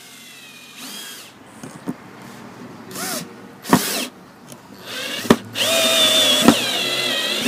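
Cordless drill-driver driving screws through a metal bracket into a wooden block: several short runs of the motor whining, then a longer, louder run of about two seconds near the end, with a few sharp clicks in between.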